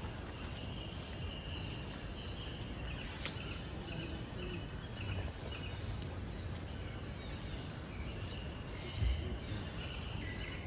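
Outdoor ambience: a steady low rumble and hiss with faint high chirping coming and going, and a soft thump about nine seconds in.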